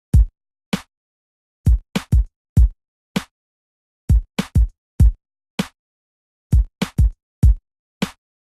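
Background music: a drum-machine beat of deep kick drums that drop in pitch and lighter, sharper hits, with silence between the strokes, repeating a short pattern about every two and a half seconds.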